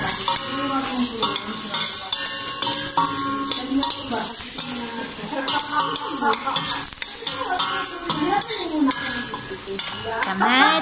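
Sliced tomatoes, onion and garlic sizzling as they sauté in oil in a stainless steel pot. A ladle stirs them, scraping and clinking against the pot's side and bottom.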